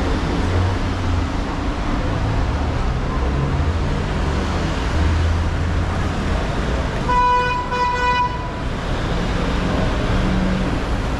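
Street traffic rumbling steadily, with a vehicle horn honking in a few quick beeps about seven seconds in.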